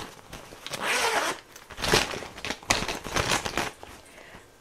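Zipper of a makeup bag being pulled open in about four short zipping strokes.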